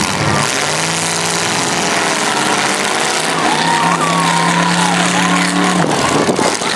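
Demolition derby car engine held at steady high revs for about five seconds, then cut off by a short burst of knocks and bangs near the end, against crowd voices.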